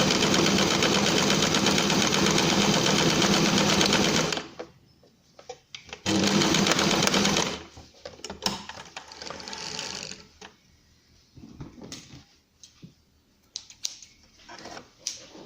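Sewing machine running at a steady speed, stitching a straight seam through doubled fabric with the standard presser foot. It stops about four seconds in and runs again for about a second and a half. Light scattered clicks and handling noises follow.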